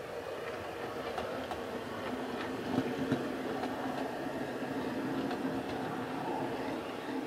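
OO gauge model Class 101 diesel multiple unit running along the track: a steady motor and wheel hum that grows louder about two seconds in as the train passes close, with a few sharp clicks from the wheels on the track.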